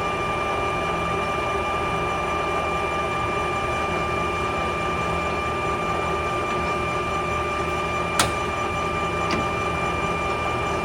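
Clausing Colchester 17 x 80 engine lathe running steadily under power, its spindle and geared headstock giving a constant hum with a steady whine. A single sharp click about eight seconds in.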